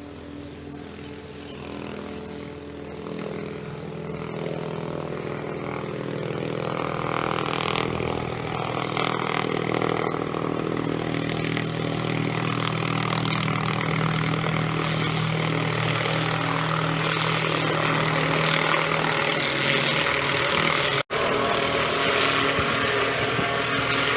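Helicopter rotors and turbine engine, the sound growing louder over the first several seconds as it approaches and then running steadily close by. The sound cuts out for an instant about three-quarters of the way through.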